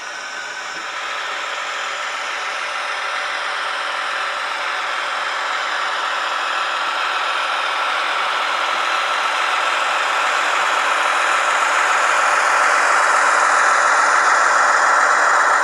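H0 model diesel locomotive running with its sound decoder's engine sound and the rattle of the running gear, growing steadily louder.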